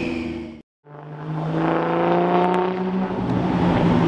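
Car engine drone that drops out to silence for a moment about half a second in, then a car accelerating with its engine pitch rising for about a second and a half over a steady low engine tone.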